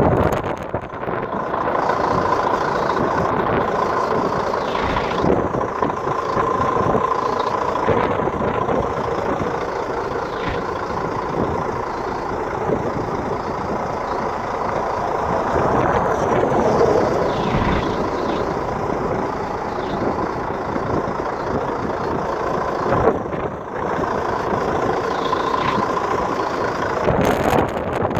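Vehicle engine running steadily, with a constant tone held over the noise of the engine.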